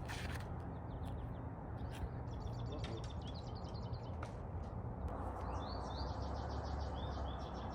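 Small birds chirping in quick repeated trills, once about two and a half seconds in and again from about five seconds in, over a steady low rumble with a few light clicks.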